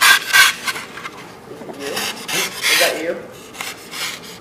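Hand knife shaving and scraping a foam fish body, carving it down to shape: runs of quick rasping strokes, loudest at the start and again two to three seconds in.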